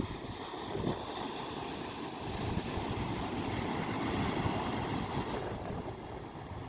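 Sea waves washing onto the shore, one wash building about two seconds in and easing off near the end, with wind buffeting the microphone.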